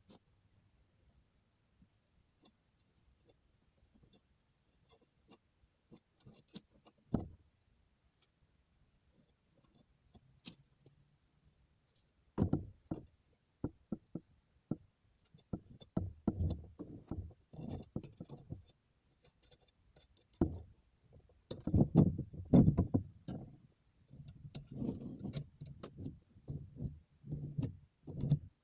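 Handling noises of small hard objects: a few light clicks, then from about twelve seconds in a run of knocks, clinks and rattles.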